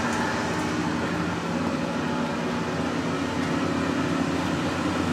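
Van Wert VA-600 coal stoker running steadily: an even motor hum with a whir of moving air. At one metre it measures about 74 dB.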